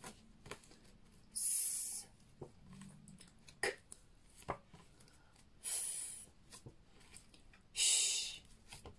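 A woman saying phonics sounds without vowels. There is a hissed "sss" about a second and a half in, a short "k" click near four seconds, another hiss about six seconds in, and a "sh" about eight seconds in, with a few small clicks between.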